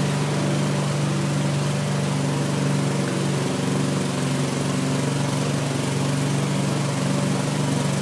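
Engine of a motorised river boat running steadily under way: a low, even hum.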